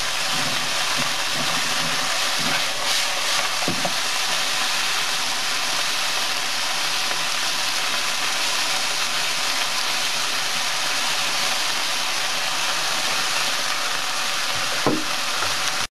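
Sliced meat in yakiniku sauce sizzling steadily in a hot nonstick pan as it is stir-fried with tongs. A couple of short knocks from the tongs against the pan come about four seconds in and near the end.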